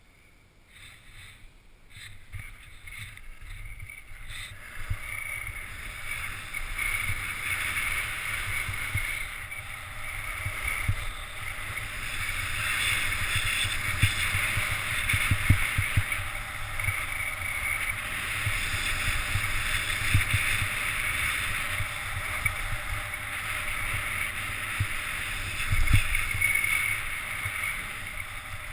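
Hiss and scrape of edges sliding over packed snow on a fast downhill run, swelling over the first few seconds as speed builds, then steady. Wind buffets the microphone underneath in low rumbles, with a stronger bump near the end.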